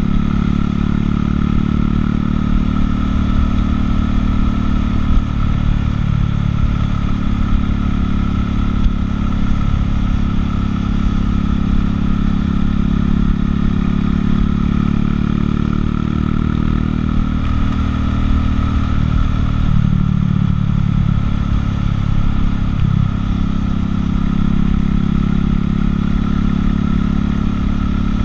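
Buell motorcycle's engine running at a steady cruise, heard from the rider's seat, with its note shifting up and back down about two-thirds of the way through.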